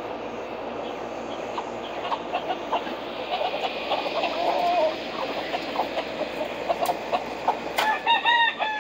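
Backyard chickens clucking in short scattered calls over a steady background hiss, with one louder, drawn-out call near the end.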